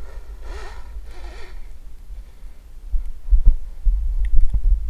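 An electric RC snowmobile motor whines briefly twice in the first second and a half. Behind it runs a low rumble of handling noise on the microphone, which gets louder after about three seconds with irregular dull thumps.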